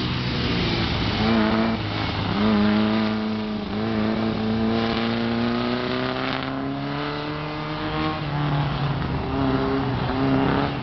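Open-wheel Vee race car's engine revving hard around an autocross course, its pitch climbing in long pulls and dropping sharply a few times, with a little tyre squeal.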